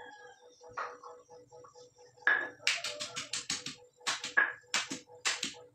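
Stone pestle pounding and grinding spices in a stone mortar: a run of sharp stone-on-stone knocks, several a second in quick clusters, starting about two seconds in.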